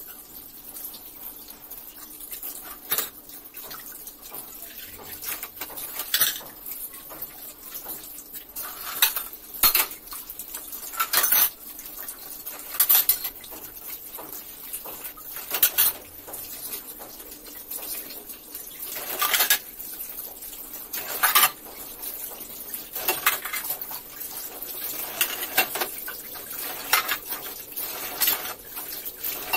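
Dishes washed by hand at a stainless steel sink: a tap runs steadily while steel plates, bowls and a spoon clink and clatter against each other every second or two.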